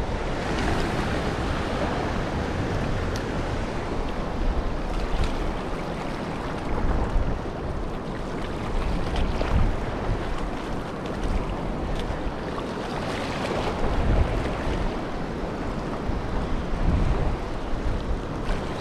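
Surf washing over a shallow reef in slow surges, with wind rumbling on the microphone.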